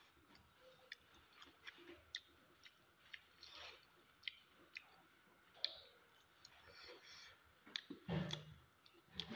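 Faint eating sounds: scattered small wet clicks and smacks of chewing and of fingers picking through fish curry, with a louder mouth sound near the end as a handful goes into the mouth.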